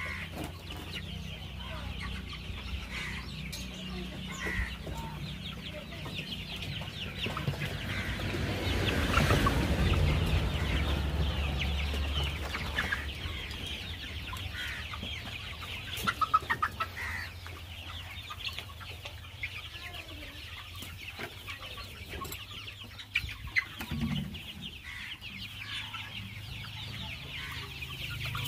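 A flock of young 54-day-old Kaveri chickens clucking and calling continuously, many short overlapping calls, over a steady low hum. A louder rush of noise swells and fades about a third of the way through.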